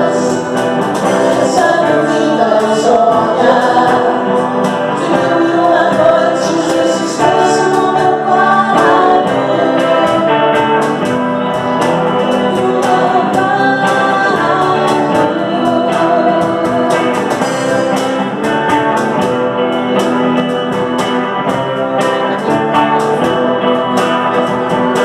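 Live band playing a song: a woman singing lead into a microphone over electric guitar and cajón with cymbal.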